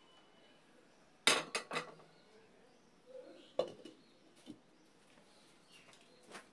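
Cookware clinking on a steel cooking pot: a quick run of three or four sharp clinks a little over a second in, then a single clink about halfway through as the lid is set on the pot, and a few lighter taps after.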